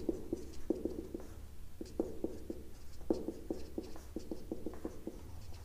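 Felt-tip marker writing numbers and plus signs: a quick run of short, irregular strokes and taps of the tip.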